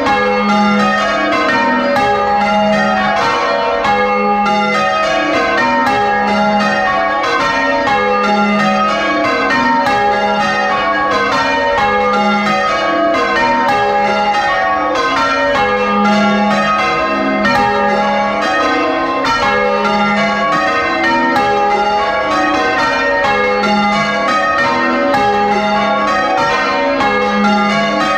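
A ring of six church bells, with a 9 cwt tenor in A♭, rung full circle in change ringing and heard loud and close inside the bell chamber. The strikes follow one another in a steady, unbroken run, and a low note recurs about every two seconds.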